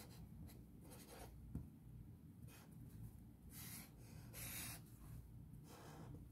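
Marker pen writing on paper: a few faint, short scratchy strokes as figures are written and a box is drawn round them.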